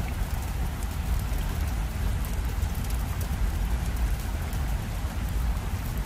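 Recorded fireplace ambience from the app: a dense, steady crackle of small pops over a low rumble.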